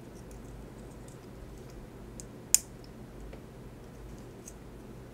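Faint clicks from a bias tape presser foot being handled while bias tape is fed into it, with one sharp click about halfway through, over a low steady hum.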